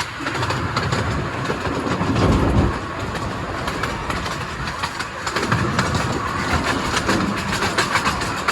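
Train running along the track, heard from on board: wheels clicking and the coach rattling over a continuous rumble that swells briefly about two seconds in.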